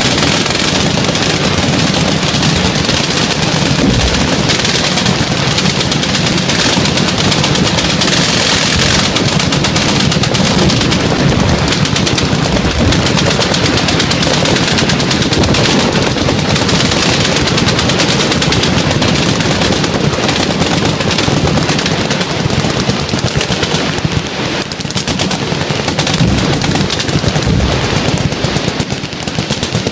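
Massed machine-gun fire from a firing line: many guns shooting full auto at once in a dense, unbroken barrage.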